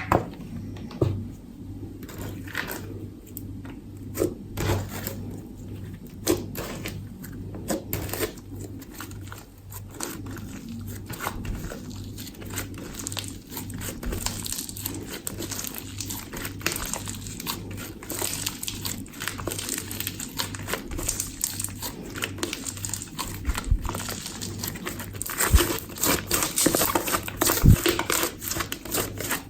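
Slime being squeezed and stretched by hand: an irregular run of small crackling clicks and pops, getting denser near the end, over a faint steady hum.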